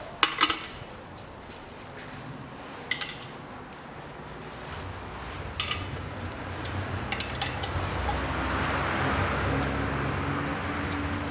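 About four sharp metal clinks of hand tools and bolts, a couple of seconds apart, as an oil pickup is bolted onto an engine block. A low steady hum builds up from about halfway through.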